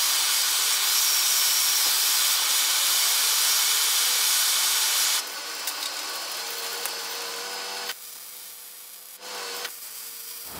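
MIG welding arc burning in a joint between a half-inch hot-rolled round-bar truss and steel tubing: a steady crackling hiss that cuts off about five seconds in, leaving a much quieter background.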